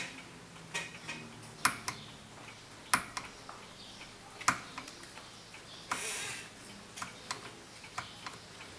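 Irregular sharp metallic clicks and taps as a brass trumpet slide is worked by hand to take out its dents. A brief rustle comes about six seconds in.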